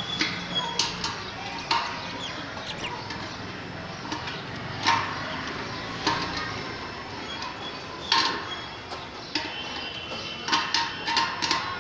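Irregular sharp clicks and knocks from the metal arm and wall mount of a satellite dish being handled and adjusted. They come a second or more apart and bunch together near the end.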